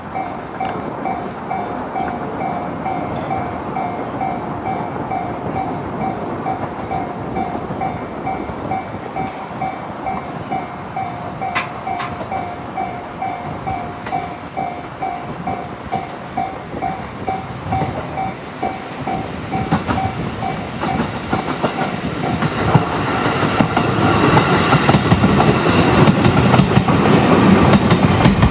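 Japanese level-crossing warning bell ringing in a steady, rapid repeating ding as a Jōetsu Line electric train approaches. From about twenty seconds in the train grows louder, and its wheel clatter over the rail joints becomes the loudest sound near the end, covering the bell.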